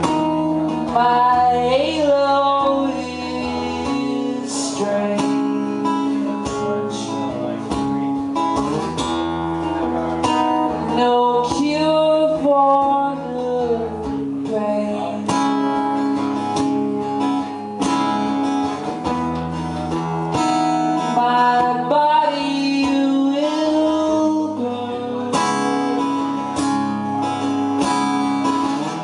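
Acoustic guitar strummed and picked with a man singing a wordless, gliding melody over a steady droning bed of held tones.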